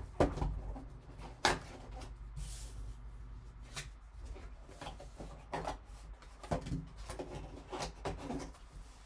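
A cardboard trading-card box being opened and handled with gloved hands: the lid lifted and slid, cardboard rubbing and scraping, with a few sharp knocks, the loudest near the start and about a second and a half in.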